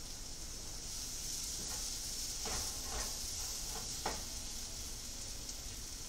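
Food sizzling steadily in a hot soup pot, with a spoon scraping and knocking against the pot four or five times about halfway through as it is stirred.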